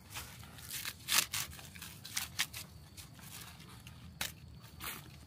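Dry plant matter crunching and crackling in a series of sharp, irregular snaps, the loudest about a second in.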